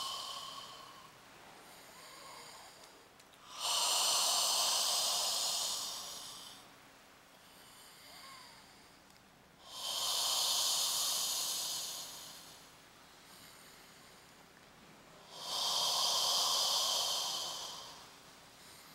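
A person breathing audibly in time with deep hand pressure on the abdomen during a chi abdominal massage: three long breaths of about three seconds each, spaced about six seconds apart.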